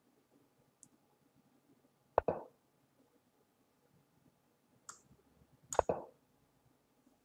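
Clicks from moves being played on an online chess board: a sharp click about two seconds in, a fainter one near five seconds, and a second sharp click just after it as a pawn is promoted to a queen.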